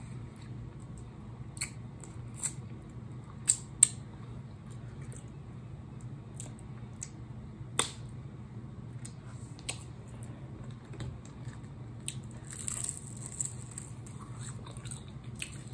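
Close-up eating of hot-sauce chicken wings: scattered sharp lip smacks and wet mouth clicks as meat is bitten and pulled off the bone, with a short hissing stretch about thirteen seconds in, over a steady low hum.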